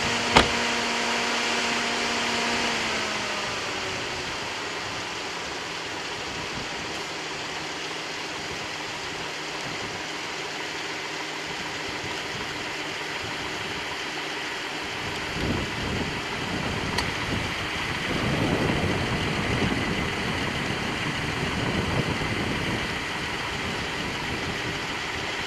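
Vehicle engine idling under a steady rushing hiss, with a hum that dips in pitch and fades about three seconds in, a click just after the start, and a rougher low rumble joining about halfway through.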